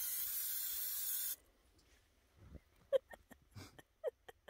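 Pressurized spray hissing steadily for about a second and a half, then cutting off suddenly; a few scattered sharp clicks and crackles follow.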